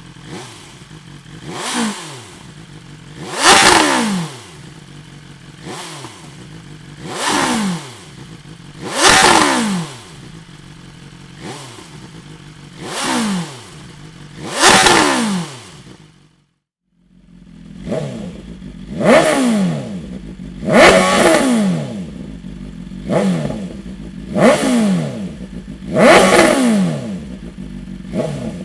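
BMW S1000R inline-four sportbike engine through a Dominator aftermarket exhaust, idling and revved in repeated sharp throttle blips. The pitch falls back to idle after each blip. The sound breaks off briefly about two-thirds of the way in, then resumes with blips coming closer together.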